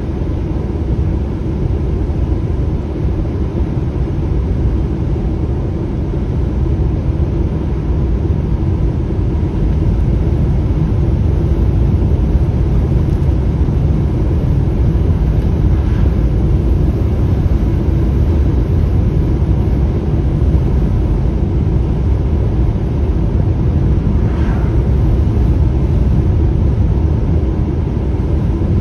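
Steady low rumble of a semi-trailer truck cruising, its engine and road noise heard from inside the cab.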